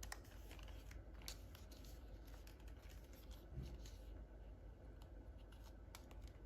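Faint scattered clicks and light rustling of toy packaging being handled.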